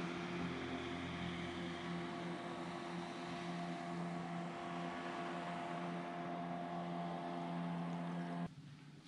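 Motorboat engine running at a steady speed out on the river, a constant drone that cuts off suddenly near the end.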